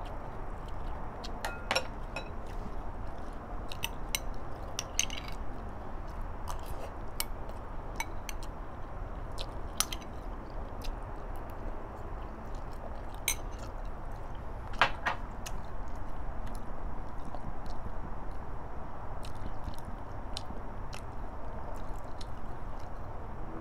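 A person chewing food, with scattered light clicks of a spoon and chopsticks against a bowl.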